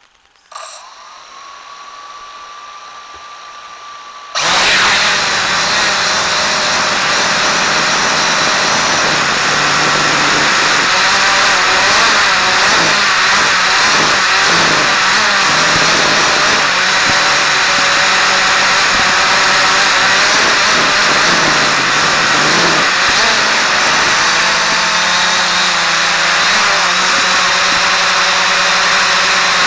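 Quanum Follow Me quadcopter's electric motors and propellers. About half a second in comes a whine that rises and then holds as the motors spin up at low throttle. About four seconds in it jumps suddenly to a loud buzz as the quadcopter takes off, and its pitch wavers with throttle changes before settling near the end.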